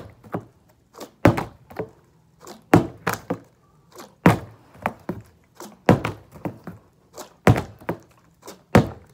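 Small plastic water bottle being flipped and landing on the floor with a thunk about every second and a half, six times, each landing followed by softer knocks.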